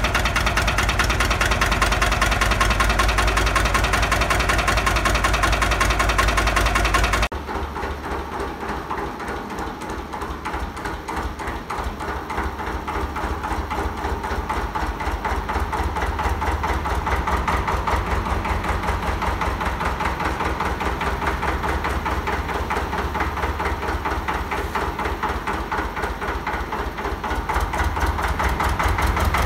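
Vintage tractor diesel engine running at idle. About seven seconds in, there is an abrupt cut to a second old tractor diesel idling with an even, rapid firing beat, which grows louder near the end.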